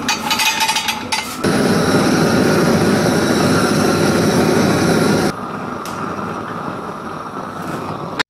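Large propane torch burning with a steady rushing noise, heating a flat steel strip so that it can be bent. A short spell of rapid clicking comes first; the flame noise comes on loud about a second and a half in and drops to a lower level a little past halfway.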